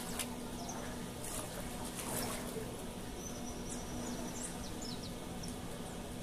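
Outdoor pondside ambience: a steady hiss with a low steady hum under it and a few short, high bird chirps about halfway through, plus a couple of brief clicks.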